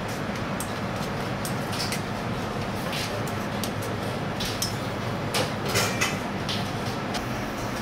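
Steady hum of a commercial kitchen's ventilation, with scattered clinks of a spoon and metal against a stainless steel bowl and a short cluster of louder metal clinks about five to six seconds in.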